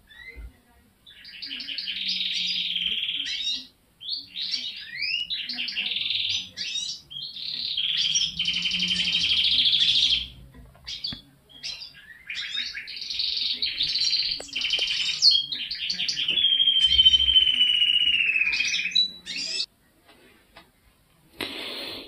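Male canary singing long phrases of rapid trills and rolls, broken by short pauses. Near the end comes a long, slightly falling held note, and the song stops a few seconds before the end.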